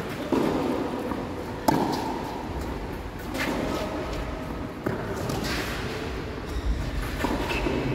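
Tennis ball struck by rackets in a singles rally: sharp hits roughly every one and a half seconds.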